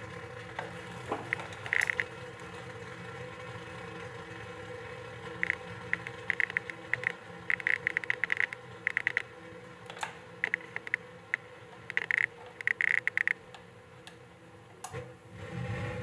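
Gas water heater's pilot igniter clicking in short rapid bursts as the button is pressed again and again, with gaps of a second or so between bursts. The pilot is being relit while air is bled out of the gas line.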